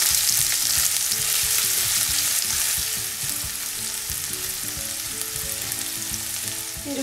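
Chopped onion, grated ginger and curry leaves sizzling in hot oil in a nonstick frying pan, stirred with a silicone spatula. The sizzle eases a little about halfway through.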